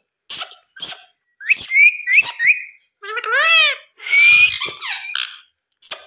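Indian ringneck parakeet making a string of short, high-pitched whistles and squeaky chirps, with brief gaps between them and a longer call near the end.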